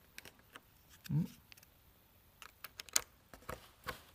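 Small plastic clicks and scrapes as a USB flash drive is worked into the USB port of an LED sign's controller box, with a brief hum from a person's voice about a second in.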